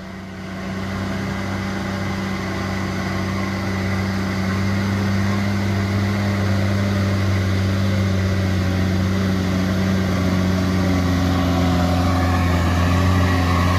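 Diesel engine of a small truck loaded with about 10 tonnes, pulling steadily uphill at an unchanging engine speed. The drone grows slowly louder as the truck approaches.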